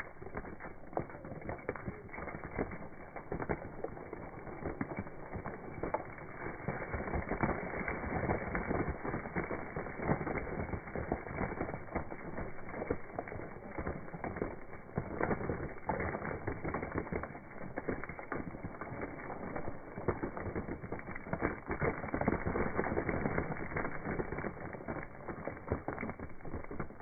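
Dry crunchy food (ring cereal, sesame breadsticks and snacks) being crushed under bare feet: a dense, unbroken run of crackles and snaps that swells and eases as the feet press and stamp.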